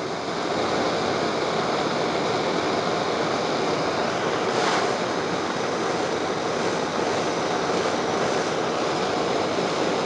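Handheld gas torch burning with a steady, even hiss as its flame heats the blades of pruning shears to sterilise them.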